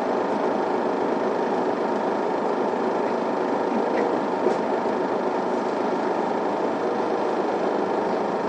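Interior sound of an Isuzu Erga diesel city bus running: a steady mix of engine and road noise with no sudden changes.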